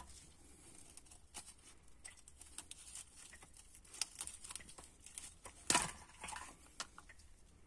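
Faint crackling and tearing as a gloved hand peels the old, perished head gasket off a 1.4 KFV engine block. Small scattered clicks, with one louder scrape about three-quarters of the way through.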